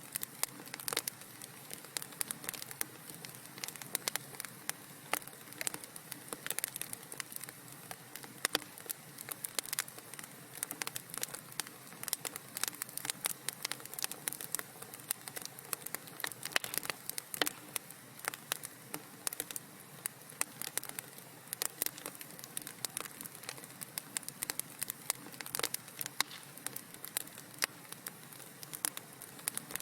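Wood fire crackling in a fireplace: a steady soft hiss under many irregular sharp pops and snaps, several a second.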